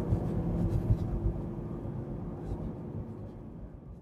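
Mercedes C63 AMG's 6.2-litre naturally aspirated V8 and road noise heard from inside the cabin while driving, a steady low drone that slowly gets quieter.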